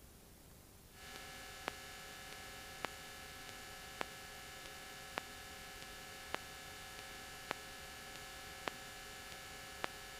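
Low, steady electrical hum of several fixed tones on the cockpit's radio and intercom audio feed, coming on about a second in, with a faint click repeating a little more than once a second.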